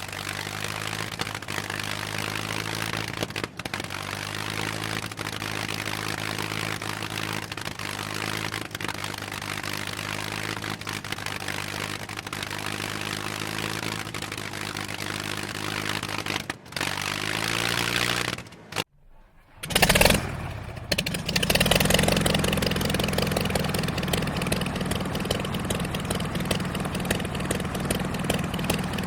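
A piston aircraft engine running steadily at a low, even pitch. About two-thirds of the way in its pitch falls away, there is a brief gap of near silence, and then an engine runs again, louder and rougher.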